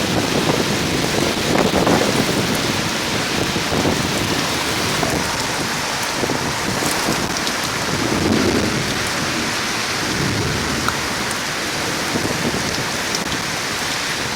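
Thunderstorm: heavy rain pouring steadily, with thunder rumbling in low swells, loudest about two seconds in and again around eight seconds.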